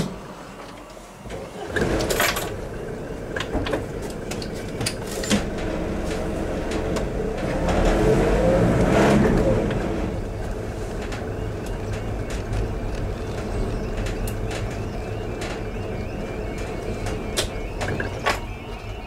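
Car engine and road rumble heard from inside the cabin as it slows to a stop, with a swell midway and a few sharp clicks. Later on, the level crossing's audible warning joins in faintly: a yodelling alarm that repeats several times a second.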